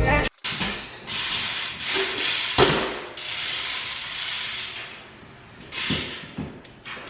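BMX bike rolling, its rear hub freewheel ratcheting, with a couple of knocks from the bike.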